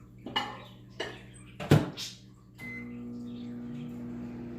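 A microwave oven being loaded and shut: a few clunks, the loudest about halfway through as the door closes, then a short beep and a steady hum as the oven starts heating.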